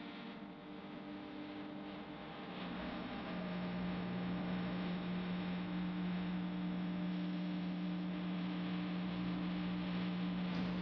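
Steady electrical hum with a low drone and a higher steady tone above it, getting somewhat louder about three seconds in.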